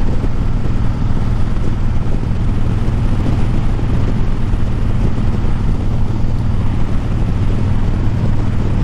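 Harley-Davidson Breakout's V-twin engine running at a steady cruise, with wind noise over it.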